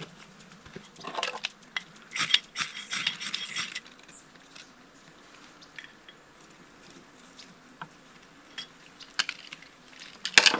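Rustling and crunching of paper tinder and kindling as a campfire is lit in a steel fire ring, loudest about one to four seconds in, with scattered clicks and a few sharp knocks near the end.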